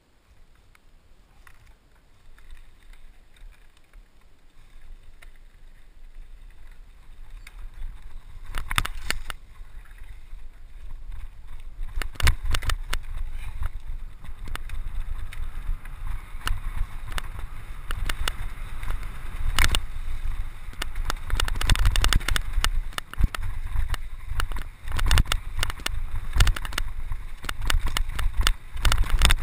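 Scott Scale 29er hardtail mountain bike ridden fast down a dirt singletrail: a rumble of wind and tyres that builds as speed picks up, with frequent sharp clattering knocks from the bike rattling over roots and bumps starting about nine seconds in. Wind buffets the microphone throughout.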